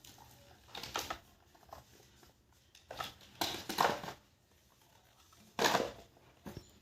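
A few brief rustling and handling noises, the loudest one near the end, over a quiet room.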